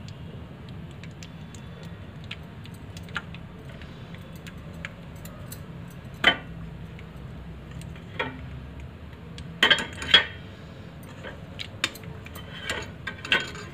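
Scattered clinks and knocks of metal kitchen utensils and pans, loudest about six seconds in and in a cluster around ten seconds, over a steady low hum.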